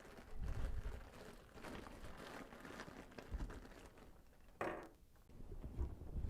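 Faint rustling and light knocks of faucet parts and packaging being handled, with one short, louder scrape or rustle about four and a half seconds in.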